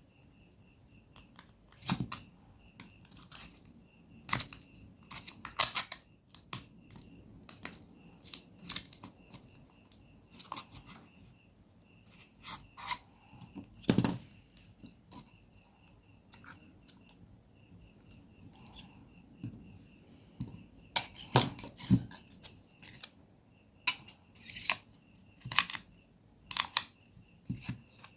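Irregular clicks, snaps and short scrapes of small repair tools and plastic parts as a Samsung Galaxy A03s smartphone is taken apart by hand, with a few louder snaps among lighter taps.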